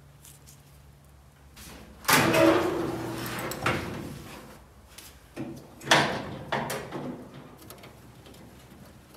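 The rusty sheet-metal front hood of a 1965 VW Beetle body being lifted open: a rough metal scrape lasting about a second and a half, ending in a knock. A few seconds later come sharper metal clanks as the lid is handled.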